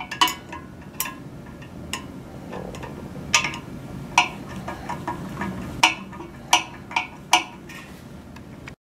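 Long-shaft Phillips screwdriver tightening the set screws that lock the antenna feed onto the dish: sharp clicks at irregular intervals, about a dozen, over a low steady hum.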